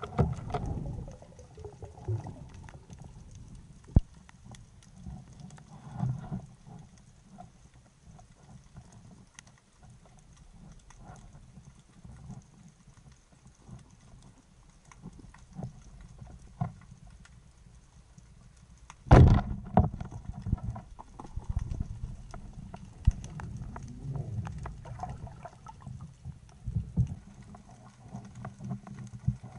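Underwater sound from a camera on a speargun: a low rumble of water with many scattered clicks and knocks. There is one sharp knock about four seconds in, and a louder sudden knock about two-thirds of the way through, followed by a few seconds of stronger water rumble.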